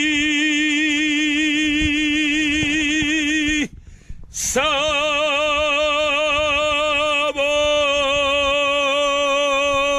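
A man singing unaccompanied, holding a long note with vibrato, then after a short breath a second, higher long note with vibrato.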